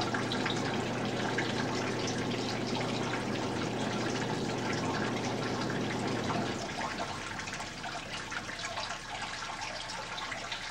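Water trickling and splashing in a tabletop model waterfall, over a steady low hum from the fog effect's machine that cuts off about two-thirds of the way through.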